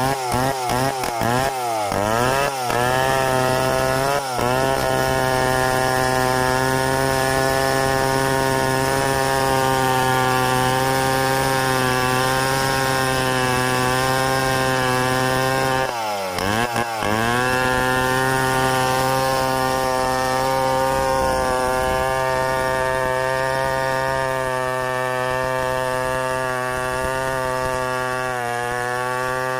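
Stihl 070 two-stroke chainsaw ripping along a log in freehand milling, mostly held at steady high revs under load. The revs are blipped up and down for the first two seconds or so, then drop briefly and climb back about sixteen seconds in.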